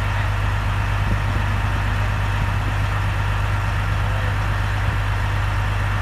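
Semi-truck's diesel engine idling steadily, a constant low drone.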